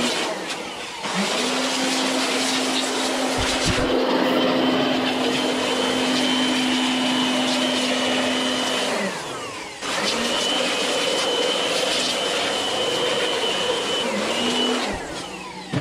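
Corded handheld electric blower running steadily as it blows dust out of an open desktop computer case, its motor whining under the rush of air. It is switched off about nine seconds in and winds down, then starts again a second later and runs until it winds down near the end.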